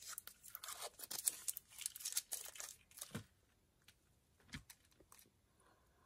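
Plastic wrapper of a Cow Tales candy crinkling and tearing as it is peeled open, a dense crackle for about three seconds, followed by two low thumps.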